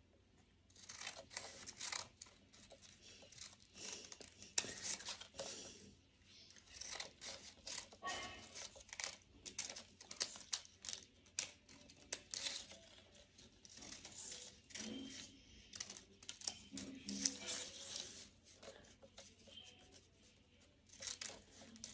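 Scissors snipping through a sheet of paper, cutting it into a fringe of strips, in runs of quick snips with short pauses between them.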